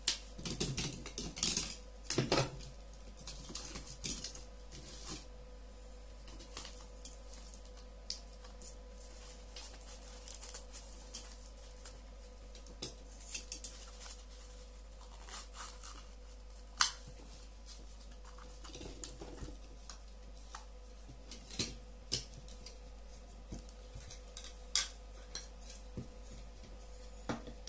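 Scattered clicks, taps and rustles of hands handling small plastic headphone parts, wires and tools on a tabletop, busiest in the first few seconds, with one sharper click past the middle. A faint steady hum runs underneath.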